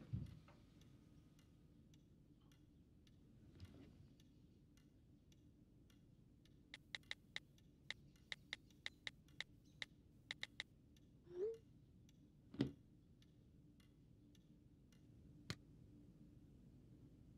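Smartphone keyboard clicks as a text message is typed: about a dozen sharp taps in quick, uneven runs over a few seconds. A short rising tone and then a single thump follow.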